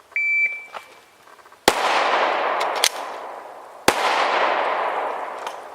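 A shot timer's short beep, then two 9mm pistol shots from a Glock 17 about two seconds apart, with a reload in between; each shot echoes and fades away for about two seconds.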